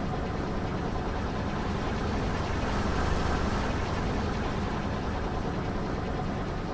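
Car engine running at low speed, a steady rumble that grows a little louder about halfway through.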